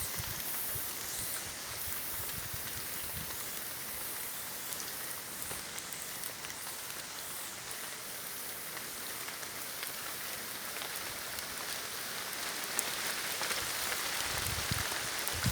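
Steady rain falling in a forest, an even hiss of drops. A few low thumps come in near the end.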